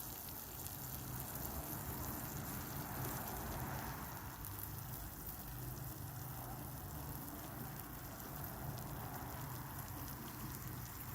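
Provoleta (provolone cheese) sizzling and crackling steadily on a grill.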